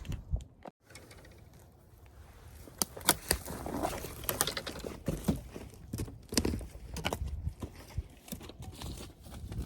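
Irregular footsteps with rustling and crunching, as of someone walking over leaf litter and twigs.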